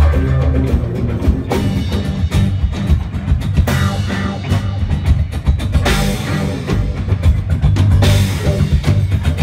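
Live rock band playing: a drum kit beating fast over a heavy bass with electric guitar, and cymbal crashes swelling up about every two seconds in the second half.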